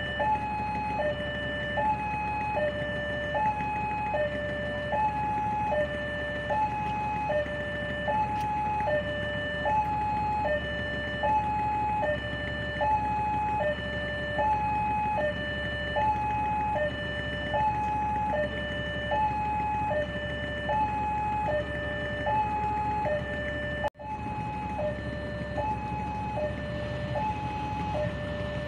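Railway level-crossing warning alarm sounding with the barrier down: an electronic two-tone signal alternating high and low, about one high-low cycle per second, warning that a train is approaching. It cuts out for an instant near the end.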